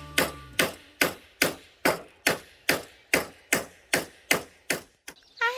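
Steady hammering: about a dozen hammer blows at an even pace, roughly two and a half a second.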